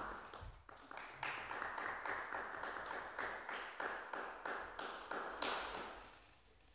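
Small audience applauding, each clap heard separately, dying away near the end.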